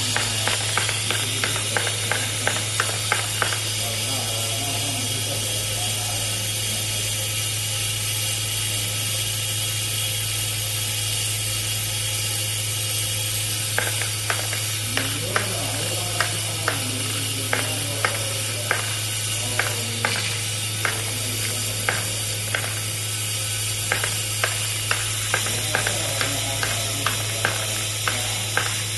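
Automatic screw-fastening machine running with a steady hum. Over it come runs of sharp mechanical clicks, two or three a second. The clicks stop for about ten seconds after the first few seconds, then start again.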